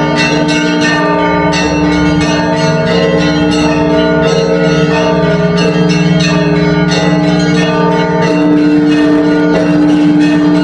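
Several church bells ringing together: quick strikes of smaller bells, several a second, over the long, steady hum of larger bells.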